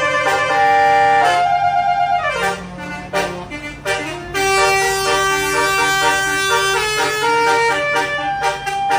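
A basuri musical bus horn playing a melody of held notes, each note made of several tones at once. It dips briefly about two and a half seconds in, then plays on.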